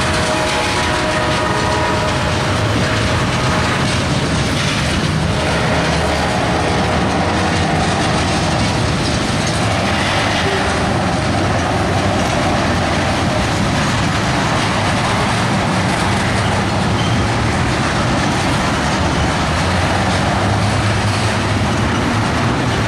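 Tank cars of a freight train rolling past at close range: a steady rumble and clatter of steel wheels on the rails.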